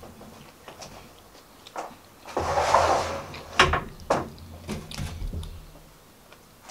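A table being cleared: a ceramic plate and chopsticks knocking and clinking against a tabletop, with a longer scrape about two and a half seconds in and two sharp knocks just after it.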